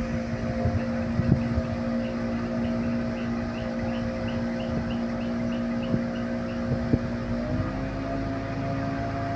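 Riverboat engine running steadily, its pitch stepping up a little about three-quarters of the way through as the revs rise. A run of short high chirps repeats a couple of times a second over the middle.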